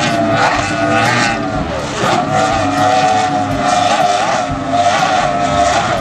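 Offshore racing powerboat's outboard engines running at high speed, a loud steady engine note that wavers slightly in pitch.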